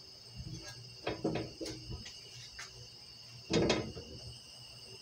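Spatula scraping and knocking against the inside of a cooking pot while oil heats in it: a few short scrapes about a second in and a louder one past three seconds.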